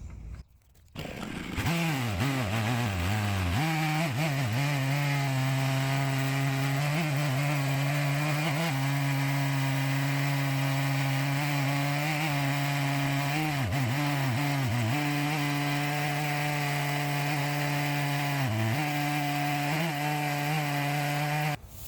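Stihl 660 two-stroke chainsaw mounted in an Alaskan chainsaw mill, throttled up about a second in and held at full revs while ripping lengthwise through an ash log. Its steady note sags briefly a few times under load, and it cuts off near the end.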